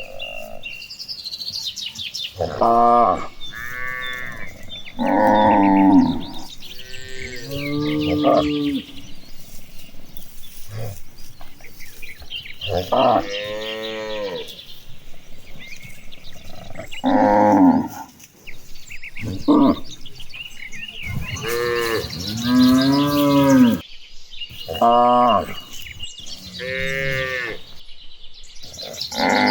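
Cattle mooing again and again, about a dozen long, bending calls from several animals, some overlapping one another. A fast regular ticking runs beneath the calls.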